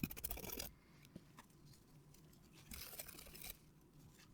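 A quick run of scrubbing strokes on a circuit board that stops within the first second. It is followed by a light click and a second short spell of rubbing a little past the middle.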